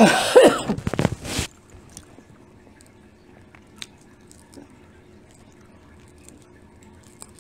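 A brief loud outburst of voice gliding in pitch, at the start. Then faint, scattered clicks and crackles of shrimp and crab shells being peeled by hand.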